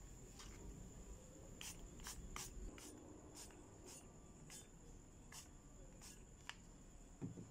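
Trigger spray bottle spritzing liquid onto a rusty metal spatula blade: about a dozen short, quiet sprays at an uneven pace, then a soft knock near the end.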